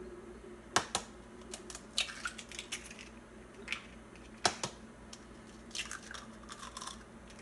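Eggs being cracked into a glass mixing bowl: sharp taps of shell against the bowl's rim, in pairs about a second in and again past four seconds, with a softer crackle of shell being pulled apart near the end.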